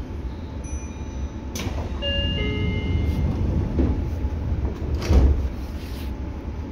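Seibu 6000 series electric train running, with a steady low rumble and the stepping tones of its Hitachi GTO-VVVF inverter jumping between pitches. Two loud clunks come about a second and a half in and again about five seconds in.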